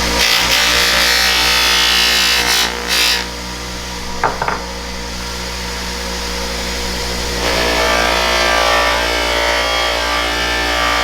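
A small power tool running against the bronze surface of a tarnished vase, removing the tarnish, over background music. It is loudest and hissiest for the first three seconds, then quieter, with a couple of short sharp sounds about four seconds in.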